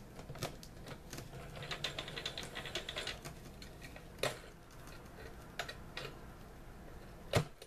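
Clicks and light ticking from a computerized sewing machine being handled by hand after a seam: its parts being worked and the thread drawn out. A quick run of light ticks comes about two seconds in, and a sharp click near the end is the loudest sound.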